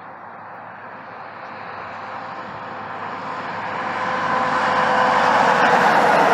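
A vehicle approaching on the highway, its tyre and engine noise growing steadily louder.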